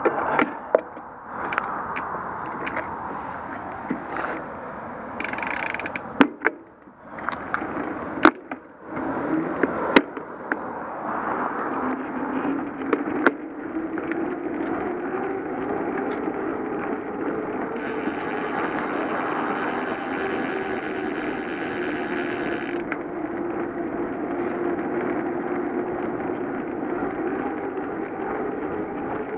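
Bicycle rolling along a city street: steady tyre and wind noise, with sharp clicks and knocks from bumps in the road over the first dozen seconds. A steady hum then sets in, and a hiss runs for about five seconds in the second half.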